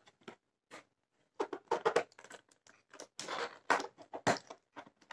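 Cardboard packaging being handled and pulled open: scattered rustles, scrapes and light taps, with a longer rustle a little after three seconds and a sharp knock a little after four seconds.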